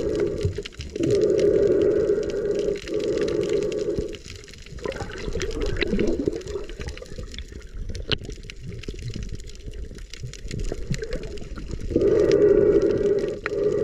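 Muffled underwater sound of a snorkeler breathing through a snorkel: droning breaths a second or two long, one after another, with a quieter stretch in the middle full of faint crackles and clicks, before the breathing grows loud again near the end.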